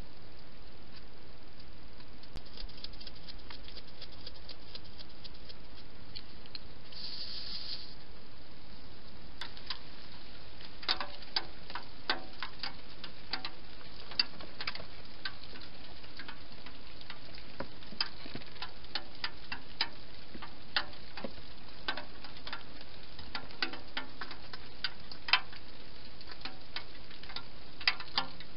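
Wild hedgehog eating at a feeding bowl: irregular crisp clicks of chewing, starting about ten seconds in and continuing, over a steady hiss.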